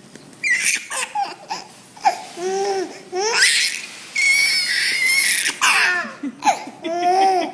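Baby laughing in repeated bursts, cracking up at a funny noise.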